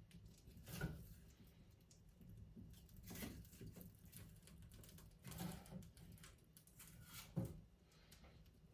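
Birch logs burning in a fireplace, quiet apart from a few sharp crackles and pops, roughly one every two seconds.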